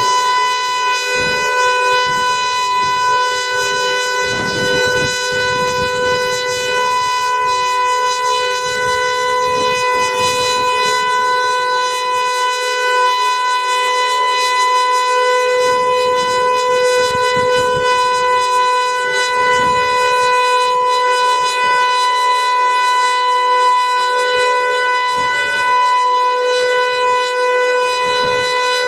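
Outdoor civil-defense warning siren sounding a test, holding one steady, loud pitch without rising or falling.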